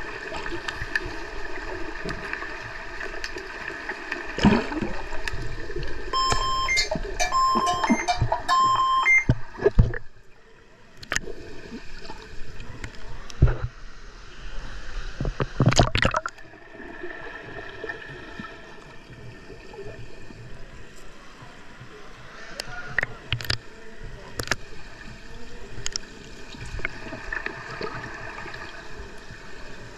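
Underwater hockey referee's signal sounding as several short, high electronic beeps about a second apart, over the bubbling hum of water heard underwater; the signal stops play. Then a few sharp knocks and splashes.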